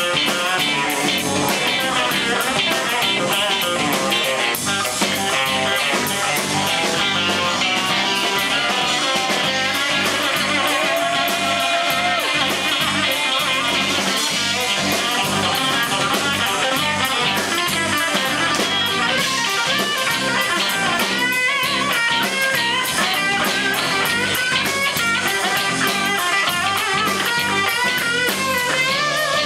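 Live blues band playing: an electric guitar plays lead lines, with bent and held notes, over drum kit and bass guitar.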